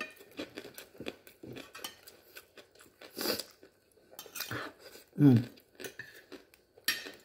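Eating rice by hand from a ceramic plate: fingers scrape and tap the plate gathering food, with small clicks and chewing. About five seconds in there is a short voiced sound from the eater, the loudest moment.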